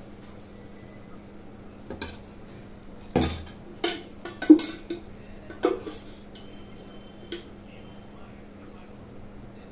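Steel ladles clinking and knocking against metal, about six separate clanks, the loudest a heavier knock a little after three seconds in.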